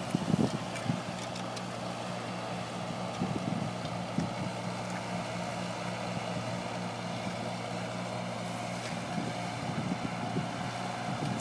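Fordson Dexta tractor engine running at a steady, even pitch while pulling a disc harrow.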